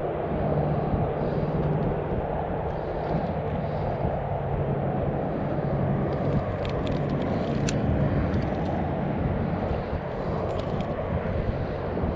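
Steady low outdoor rumble with a faint low hum, and a few light clicks around the middle as the baitcasting reel is worked.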